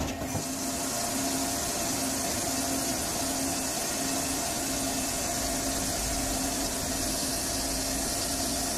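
CNC lathe running a machining cycle just after cycle start: a steady hiss of coolant spraying inside the closed enclosure over the machine's running noise, with a low hum that pulses on and off.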